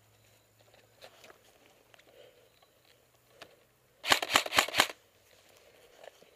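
An M4-style airsoft rifle firing a quick string of about five sharp shots, about four seconds in.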